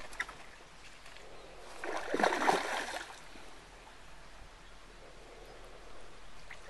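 A hooked common carp splashing at the surface close to the bank while it is played on the rod. One burst of splashing lasts about a second, starting about two seconds in; otherwise only faint outdoor background.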